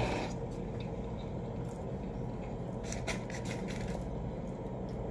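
Quiet room tone: a steady low hum with a few faint clicks about three seconds in.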